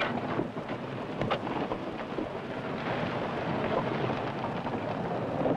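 Wooden wagons and horses working down a steep hillside: a continuous rumble and clatter of wheels and hooves, with scattered sharp knocks.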